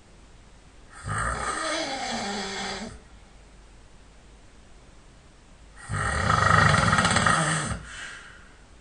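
A sleeping man snoring: two long, rough snores about five seconds apart, the second louder.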